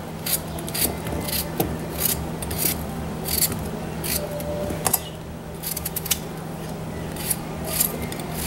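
A knife cutting through raw peeled potatoes held in the hand, with irregular crisp slicing strokes about one or two a second. The diced chunks drop into a metal pot.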